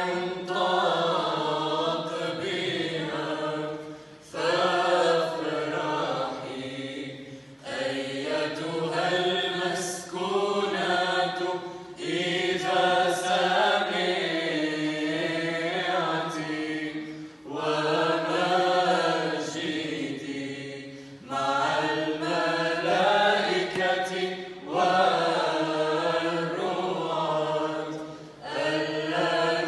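Youth choir singing Arabic Byzantine chant a cappella, the melody moving in phrases with short breaths between them over a steady held low note.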